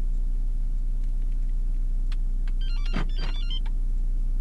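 Starline A91 car alarm giving a short electronic beep melody of rapidly stepping tones, lasting about a second, to confirm the programmable-neutral command, over the steady hum of the idling engine.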